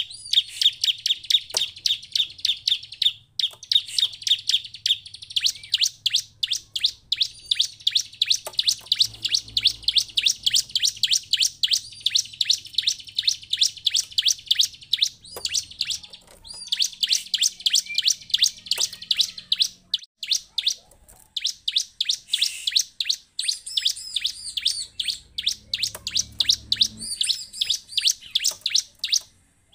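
Bar-winged prinia (ciblek) singing: long, fast runs of sharp, high repeated chirps, many to the second, broken by a few short pauses.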